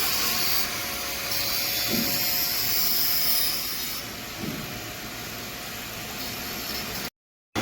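Metal lathe running and cutting metal: a steady hiss of the cut with a faint steady whine beneath. The sound shifts abruptly in level a few times and drops out briefly near the end.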